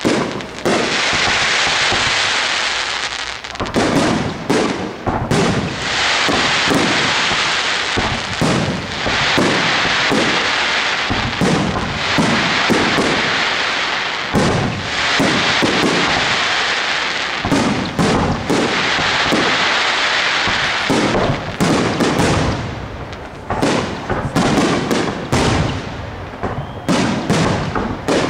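Aerial fireworks shells bursting in quick succession: a dense, irregular run of bangs over a continuous high hiss, the bangs growing thicker about four seconds in.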